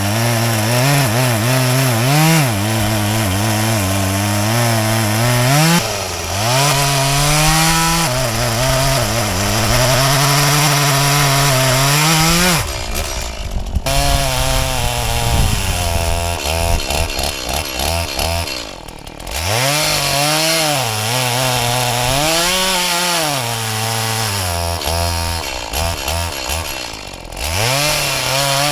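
Stihl MS180 small two-stroke chainsaw cutting wood, its engine pitch repeatedly sagging under load and climbing back. It drops off briefly three times as it comes out of the cut.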